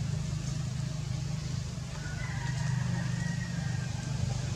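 A steady low engine drone, like a motor running at idle, with a faint high-pitched tone over it from about two seconds in to near the end.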